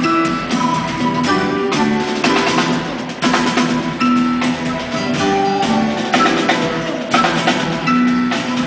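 Live rock band playing an instrumental passage: acoustic guitar with a drum kit keeping a steady beat and held melody notes over it.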